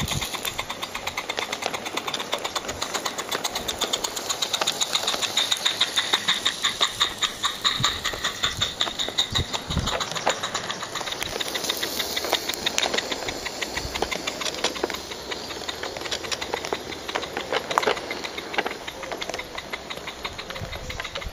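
Live-steam Mamod SL1 garden-railway locomotive with PPS cylinders running past with a rapid chuffing exhaust and steam hiss, loudest a few seconds in. Its tank wagons follow with a quicker clicking and rattling of wheels on the track.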